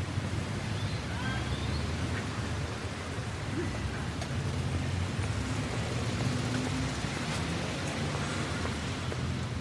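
City street ambience: a steady low rumble of traffic under a general outdoor wash of noise, with a few faint short sounds on top.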